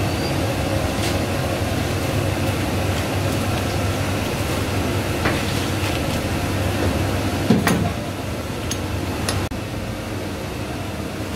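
Steady machine hum of kitchen ventilation, with a few light clicks and one louder knock of a utensil on a cutting board as butter is brushed over naan.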